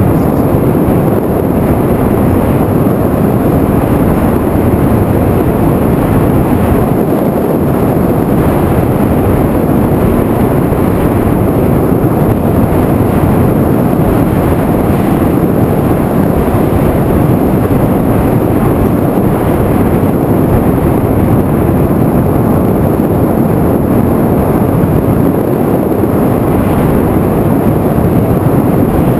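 Steady, loud rushing of wind over the onboard camera's microphone on an FPV drone in high-altitude flight.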